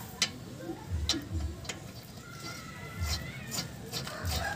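Sharp metal clicks and clinks of lug nuts being handled and threaded by hand onto the studs of a steel wheel. A faint animal call comes in from about two seconds in.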